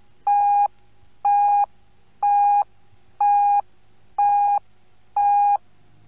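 Radio time signal marking the hour: six short beeps of the same pitch, evenly spaced about a second apart, over a faint steady hum.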